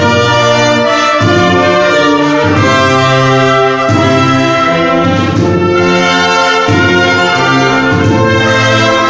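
Brass ensemble playing loud sustained chords, the low brass holding long notes that change about every second.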